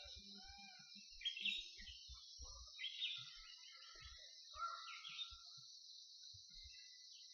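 Peacock calling three times in short, loud, downward-sweeping cries, over a steady high-pitched drone of insects.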